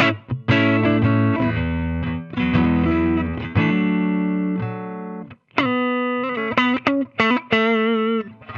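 Electric guitar played through an AmS Hurricane 20 combo amplifier with some overdrive: chords ring out and fade, the sound stops briefly about five seconds in, then a few held notes with wavering pitch.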